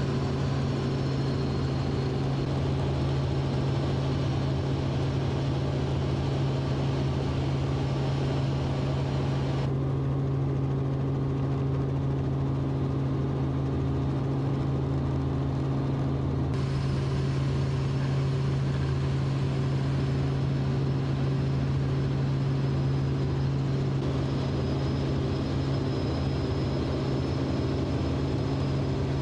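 Steady drone of a helicopter's engine and rotors heard from aboard: a strong low hum with evenly spaced overtones. The higher hiss dulls for several seconds in the middle.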